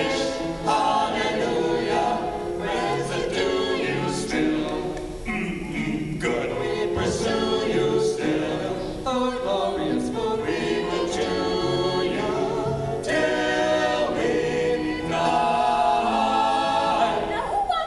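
A choir singing a gospel-style song in harmony.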